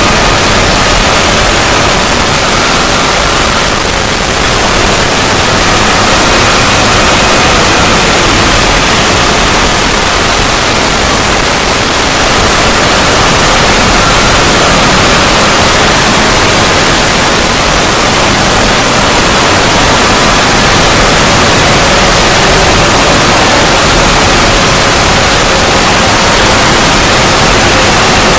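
Extended 'void' logo sound effect: a loud, steady static-like hiss with faint held tones underneath.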